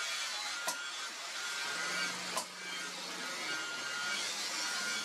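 Two sharp metal blows, about a second and a half apart, from a hammer striking a chisel held on red-hot steel on an anvil, over a steady hiss.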